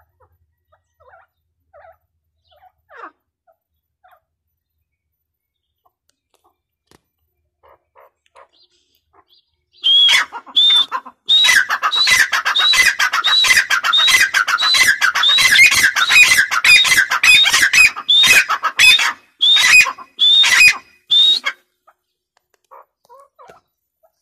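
Grey francolin calling: a loud run of rapidly repeated high-pitched notes that starts about ten seconds in and lasts about eleven seconds. A few faint notes come before it.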